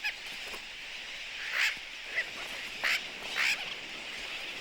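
Sooty terns calling in a crowded nesting colony: about five loud, harsh, nasal cries stand out over a steady din of many birds calling at once.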